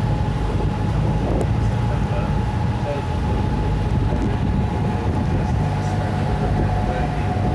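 Water-bus or water-taxi engine running at a steady speed: a constant low drone with a thin steady whine above it.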